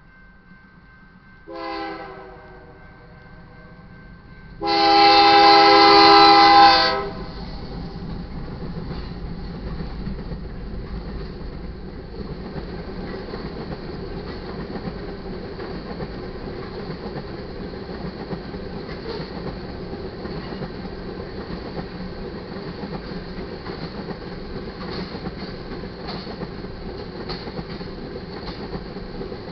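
Horn of a BNSF GE Dash 9-44CW diesel locomotive: a short chord blast about two seconds in, then a long, loud blast, the end of its grade-crossing warning. The crude oil train then rolls past at speed, a steady rumble of the locomotives and tank cars with wheels clicking over the rail joints.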